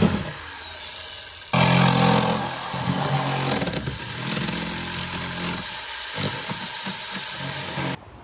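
Corded electric power tool running under load, cutting and scraping rotted plywood core out of a fiberglass boat transom. It grows suddenly louder about a second and a half in and cuts off abruptly near the end.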